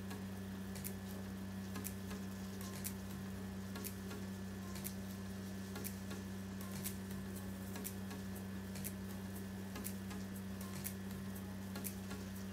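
A steady low hum with a light tick about once a second.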